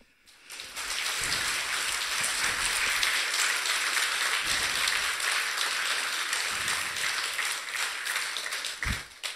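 Audience applauding at the end of a talk, swelling up within the first second, holding steady, then dying away near the end.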